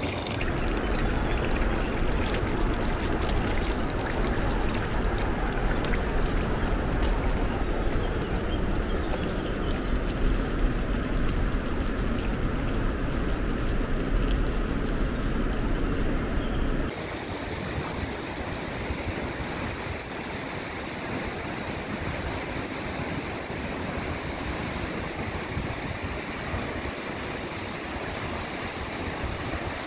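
Steady rushing water with a deep rumble underneath; about seventeen seconds in it changes abruptly to the even, steady rush of a tall waterfall.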